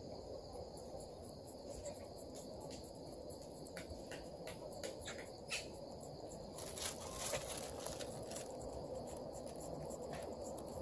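Crickets and other insects trilling steadily. A string of short clicks comes about four to five seconds in, and a brief rustle near seven seconds.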